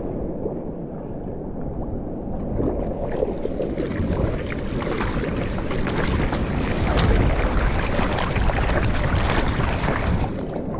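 Water splashing and rushing around the nose of a surfboard as it is paddled through chop, heard close from a camera fixed on the board, with some wind on the microphone. The splashing grows louder and busier about four seconds in.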